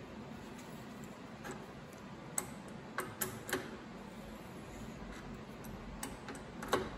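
A handful of light, irregularly spaced metallic clicks as an adjustable wrench is seated on and turned with an MT3 Morse taper reamer, hand-reaming the worn taper of a lathe tailstock; the loudest click comes near the end, over a low steady background hiss.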